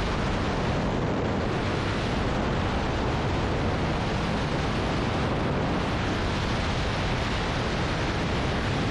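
Wind rushing over the camera microphone in skydiving freefall: a steady, unbroken roar.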